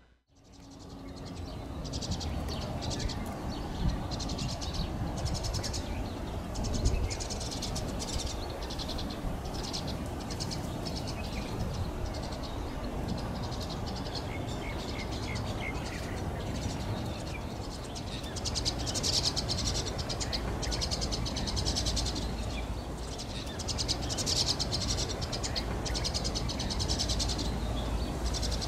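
Outdoor nature ambience: small animals chirp and trill in quick pulsing runs again and again, over a steady low rumble.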